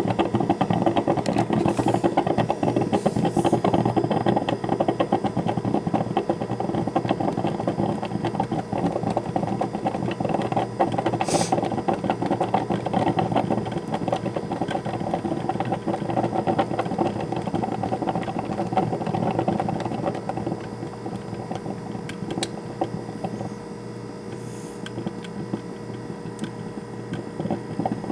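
Black & Decker drip coffee maker gurgling and sputtering steadily as hot water is pushed through near the end of its brew cycle. It eases off somewhat about two-thirds of the way in.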